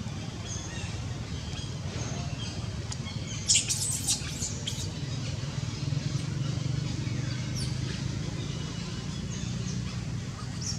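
Birds chirping in short high calls over a steady low background rumble, with a brief burst of sharp high squeaks about three and a half seconds in.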